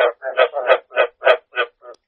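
Rice-field frogs (East Asian bullfrog, Hoplobatrachus rugulosus) calling: a regular series of short croaks, about three a second.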